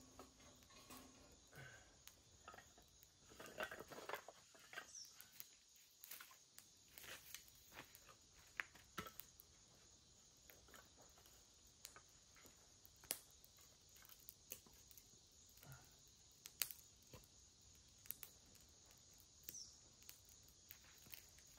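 Faint, irregular pops and crackles of a small wood campfire, a few of them sharper, with a brief rustle about four seconds in and a faint steady high hiss behind.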